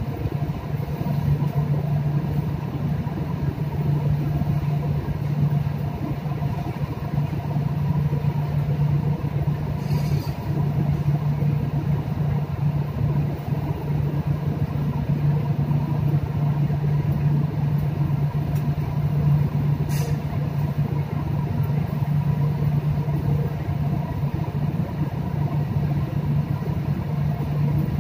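Steady low machinery hum aboard a ship under way, unchanging throughout, with a light click about ten seconds in and another about twenty seconds in.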